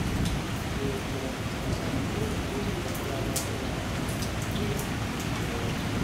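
Rain from a thunderstorm falling steadily, with sharp drops tapping close by now and then.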